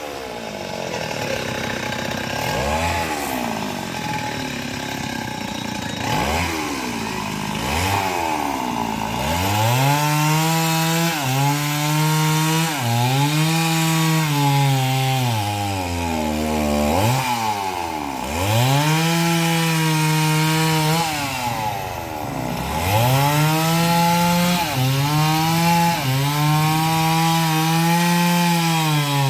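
Two-stroke chainsaw running near full throttle while cutting coconut palm wood. Its pitch sags again and again as the chain bites and the engine is loaded, then climbs back, with a deep drop about two-thirds of the way through.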